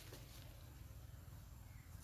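Near silence: faint outdoor ambience over a low, steady rumble.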